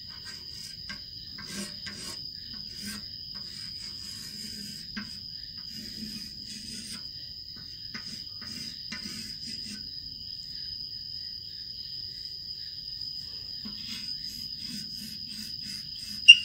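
Chalk scratching in short strokes on a blackboard, under a steady high cricket trill. A single sharp click near the end is the loudest sound.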